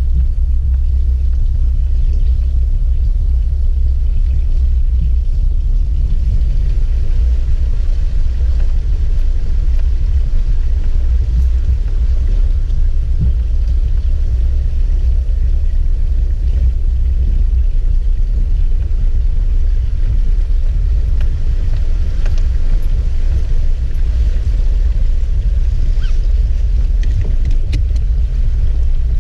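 Vehicle driving slowly through a deep flooded stretch of forest road and out onto gravel, heard from a camera on its hood as a loud, steady low rumble. A few light ticks come near the end.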